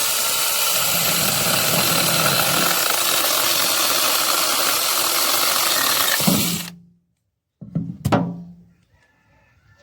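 Angseen 6-inch brushless battery mini chainsaw running steadily for nearly seven seconds, then stopping abruptly; a short second burst follows about a second later.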